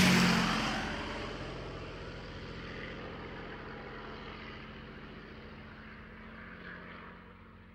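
Small propeller plane's engine droning steadily as it flies away just after a low pass, fading slowly throughout.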